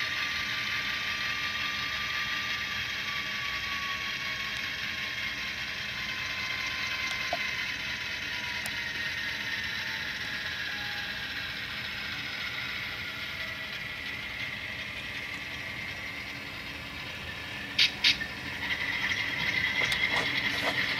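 Tsunami sound decoder in a Kato AC4400 model locomotive playing its diesel engine sound through the model's small speaker. It is a steady mechanical rattle with a faint tone that slowly falls in pitch. Two sharp clicks come near the end.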